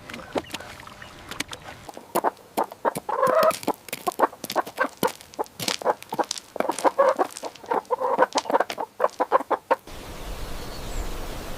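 Chickens clucking in quick runs of short, sharp clucks. The clucking stops abruptly near the end, giving way to a steady outdoor hiss.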